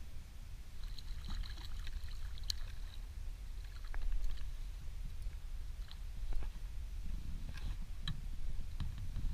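A hooked rainbow trout being played beside an inflatable boat: light clicks and ticking from the spinning reel as it is cranked, and water splashing where the fish swirls at the surface about four seconds in, over a steady low rumble of wind on the microphone.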